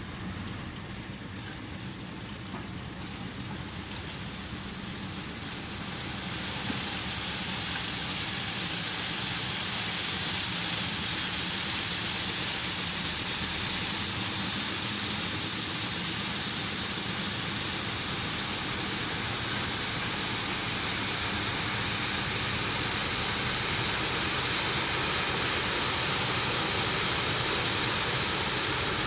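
A machine engine running, joined about six seconds in by a loud, steady hiss that then holds.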